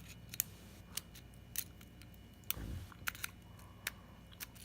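Faint, scattered metallic clicks and light scraping of a hook lock pick working the pins inside a practice lock, with a dull handling thump about halfway through.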